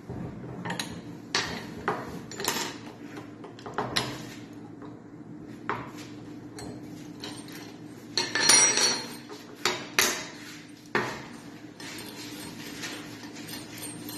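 Steel tools and small metal parts clinking and knocking as they are handled and set down while an espresso machine's lever assembly is put back together: a dozen separate sharp taps, with a cluster of brighter ringing clinks about eight to ten seconds in.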